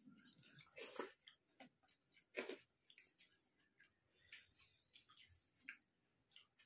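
Faint chewing and wet mouth clicks of people eating rice and curry by hand, with irregular soft smacks and squishes.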